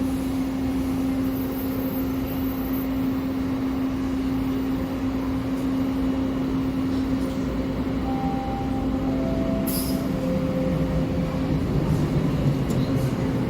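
TTC subway train at a station platform: a steady electrical hum over a low rumble. About eight seconds in, three short tones step downward one after another, and near the end the rumble grows as the train starts to move.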